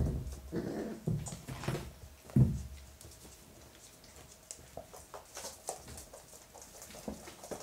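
Month-old Hungarian Vizsla puppies scrambling and tussling on a shaggy mat: scuffling and pattering paws, light taps, and a dull thump about two and a half seconds in.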